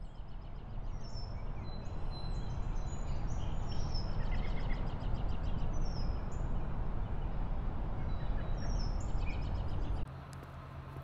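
Outdoor ambience fading in: several birds chirping and singing over a steady low rumble. About ten seconds in, it cuts to a quieter indoor room tone with a steady hum.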